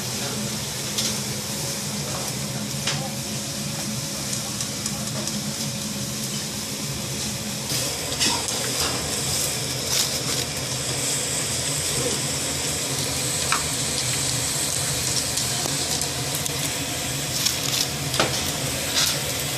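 Youtiao (Chinese fried dough sticks) deep-frying in hot oil, a steady sizzle. Occasional sharp clicks come as the sticks are turned and lifted out with long chopsticks into a wire basket.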